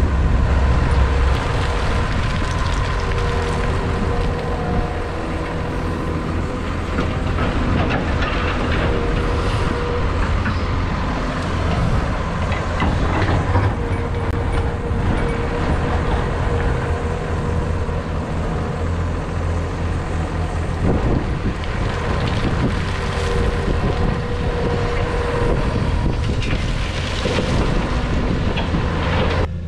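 Heavy diesel earthmoving machinery working: a Cat tracked excavator's engine and hydraulics running beside a New Holland tractor, with a steady whine. Spells of rattling come as earth and stone are tipped into the tractor's trailer.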